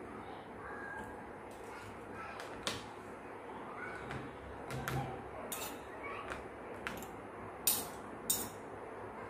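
Spoon and fork clicking and scraping against a plastic takeaway food container while eating, with a few sharp taps near the end, over a steady room hiss.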